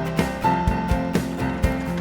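Upbeat country-style background music with plucked guitar and a steady beat of about four strokes a second.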